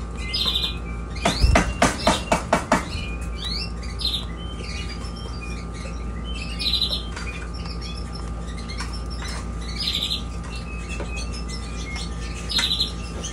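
Young canaries chirping and twittering in short, repeated calls. A quick run of about eight sharp taps comes a little over a second in.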